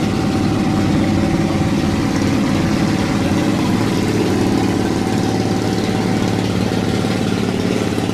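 A wooden riverboat's engine running steadily with a fast, even beat as the boat motors past.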